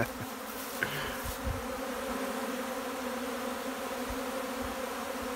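Many honey bees buzzing around an open sugar-syrup feeder, a cut-down plastic tote filled with hay, in a steady hum. The bees have found the feeder and are working it.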